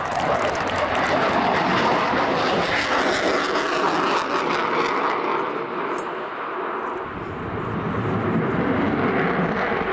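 JASDF F-15J fighter's twin turbofan jet engines as the jet maneuvers overhead: a loud, continuous jet noise that fades somewhat about six seconds in and swells again near the end.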